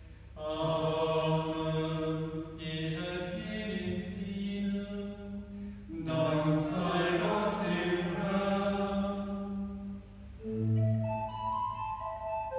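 Church music: a slow hymn in long held notes, with a pause between phrases every few seconds.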